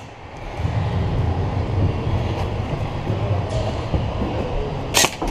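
A steady low rumble, then two sharp cracks close together about five seconds in, typical of shots from an airsoft replica rifle.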